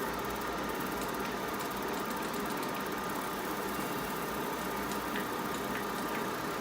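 Laser back-glass separating machine running a test pass: a steady mechanical hum with a faint high tone and a few light ticks.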